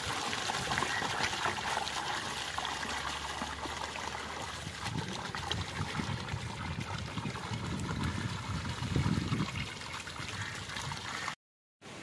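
Water pouring from a pipe into a basin of water, with hands rubbing and splashing a skinned quail in it to wash it. Cuts off suddenly near the end.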